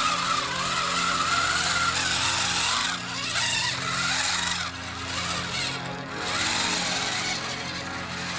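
Small electric motor of a remote-controlled toy tank whining as it drives across the floor, its pitch wavering, with short dips about five and six seconds in.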